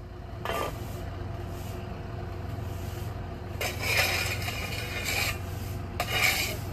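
A vehicle engine idling with a steady low hum, with several brief rustling noises over it about half a second in, around four seconds, and again around six seconds.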